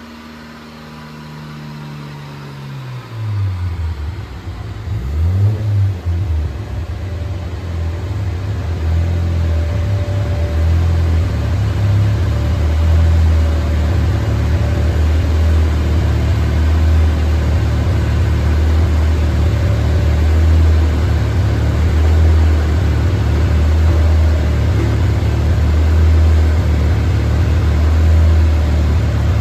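Car engine on a chassis dyno, its pitch falling over the first few seconds as it winds down from a pull, then running with a steady low rumble that grows louder and holds.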